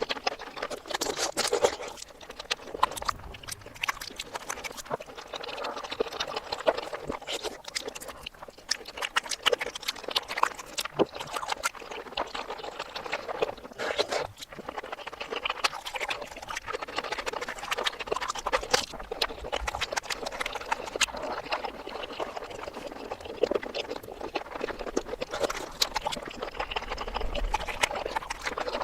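Close-miked mukbang eating sounds played in reverse: continuous wet chewing, mouth smacking and crackling clicks, a dense stream of small sharp noises with no pauses.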